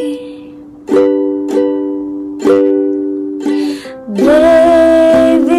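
Ukulele chords strummed four times, each left to ring and fade, then a woman's voice comes in near the end holding a sung note over them.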